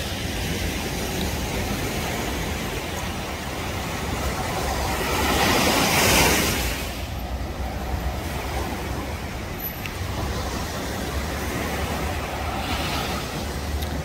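Surf breaking and washing up a sandy beach: a steady hiss with a louder wave crashing about five to six seconds in and another swell near the end.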